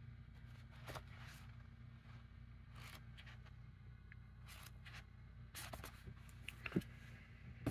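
Faint rustling and handling of a small paperback book as its pages are flipped open, then a few light taps and a scrape near the end as it is set down among other paperbacks.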